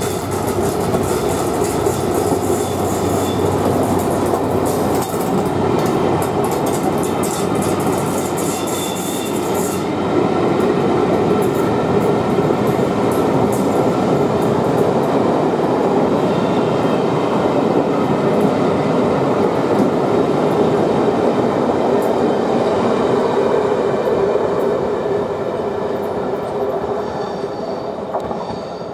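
Venice Simplon-Orient-Express British Pullman coaches rolling past close by: a steady rumble and clatter of wheels on the track, with rapid fine clicking through the first third. It fades near the end as the last coach draws away.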